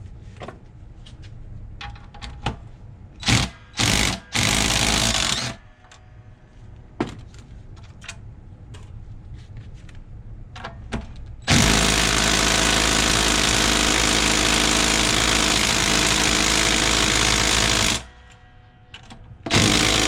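Power impact wrench hammering at rusty nuts on a brake backing plate assembly. It comes in a few short bursts, then runs steadily for about six seconds, then gives one more short burst near the end.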